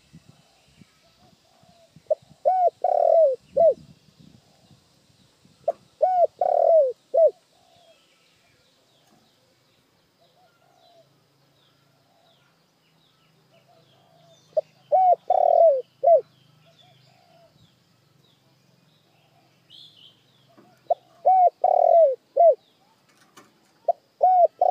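A spotted dove cooing: five phrases of several notes each, the middle note longest and loudest, spaced a few seconds apart. Faint high chirps of small birds sound in the background.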